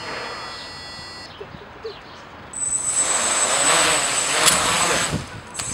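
Electric motors and propellers of a homemade quadcopter spin up about two and a half seconds in: a loud whirring with a steady high whine. Just after five seconds the whirring drops and a sharp knock follows as the drone tips over on takeoff.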